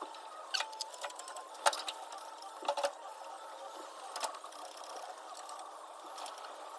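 Scattered metallic clinks and knocks from hand work on metal parts, a handful of separate strikes with a double one near the middle, over a steady background hum.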